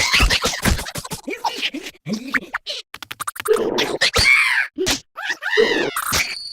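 Cartoon sound effects: a quick run of short clicks and scrapes, then two swooping pitched sounds that rise and fall, about three and a half and five and a half seconds in.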